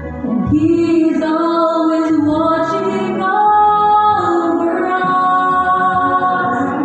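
A woman singing a slow song over backing music, holding long notes, the longest about halfway through.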